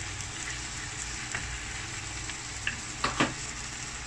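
Raw ground pork and tomatoes sautéing in a nonstick frying pan: a steady sizzle, with a spatula scraping and tapping against the pan a few times, most clearly about three seconds in.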